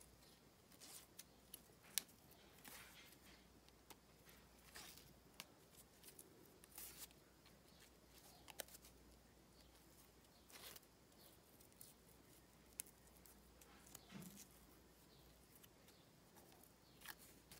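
Faint rustling of grosgrain ribbon being wound tightly by hand around a metal snap hair clip, with scattered small sharp ticks, the sharpest about two seconds in.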